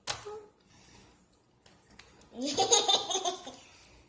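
A short sharp sound at the start, then a brief burst of laughter about two and a half seconds in.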